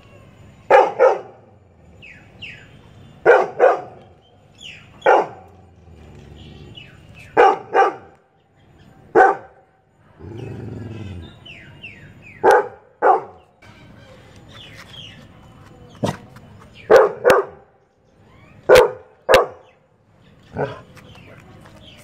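A Labrador retriever barking in short bursts of one or two sharp barks every couple of seconds, with one longer, low sound about halfway through.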